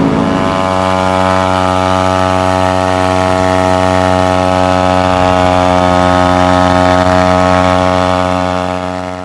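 Kawasaki Ninja 250R parallel-twin engine breathing through a Two Brothers aftermarket exhaust, running at a steady cruise with an even, unchanging drone. The sound fades out near the end.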